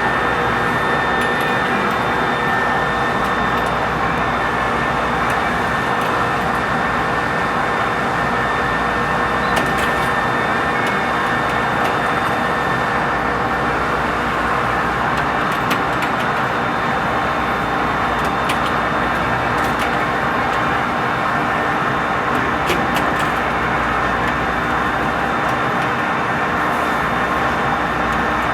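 A lathe running steadily while turning a large workpiece, one of several steady tones over a constant machine noise, with a few faint ticks.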